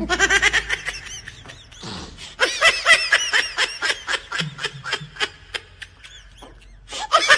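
A person laughing hard in quick, high-pitched bursts, in several bouts: one at the start, a longer one from about two and a half seconds in, and another near the end.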